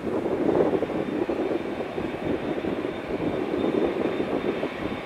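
Embraer E195-E2 jet airliner's Pratt & Whitney PW1900G geared turbofan engines at takeoff power: a steady rumbling jet noise, with a faint high whine coming in about two seconds in and holding.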